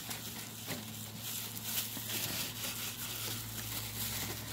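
Paper towel being rubbed across a truck's plastic headlight lens: a run of soft, hissy wiping strokes.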